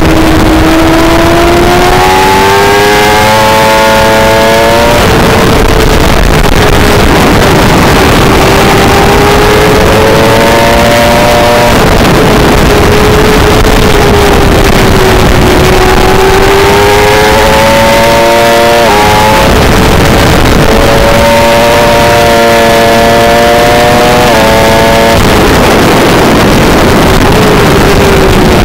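600cc sportbike engine heard from the bike itself at racing speed, climbing in pitch four times as it accelerates hard out of corners, with sudden small drops in pitch at the upshifts, and sinking back between the climbs as the rider slows for the turns.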